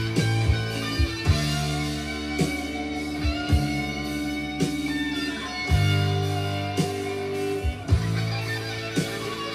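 Guitar-led song with electric guitar and drum hits, played back from a cassette on a restored Tandberg TCD 440A stereo cassette deck.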